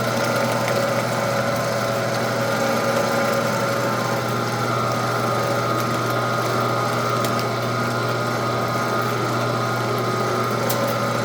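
Weston No. 32 commercial electric meat grinder's 1.5 horsepower motor running steadily with a constant hum, grinding a whole quail dropped into the feed opening.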